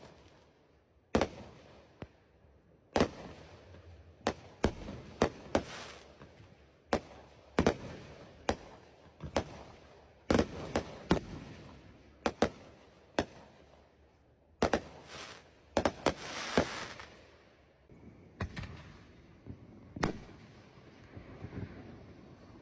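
Fireworks going off: a string of sharp bangs at irregular intervals, each with an echoing tail, and a denser run of crackling about two-thirds of the way through.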